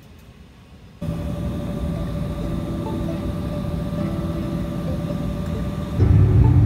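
Jet airliner engines heard from inside the cabin: after a quiet first second, a steady loud low rumble with a constant hum while the plane moves on the ground. About six seconds in it turns louder and deeper as the airliner climbs after takeoff.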